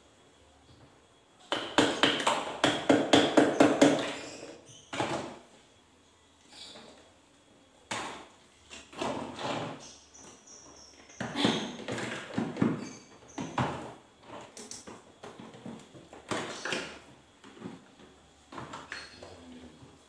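Clicks, knocks and rattling of parts being handled inside an open refrigerator, in bursts. The loudest is a dense rattle about two to four seconds in.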